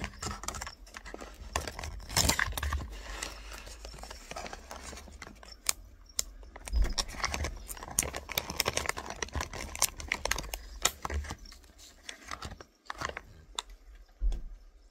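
Plastic food pouch being crinkled, rustled and pulled open at its top in the hands, with many irregular sharp crackles.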